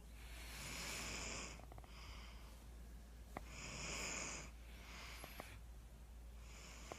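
A sleeping person snoring: three louder, hissy breaths about three seconds apart, with a softer breath between each.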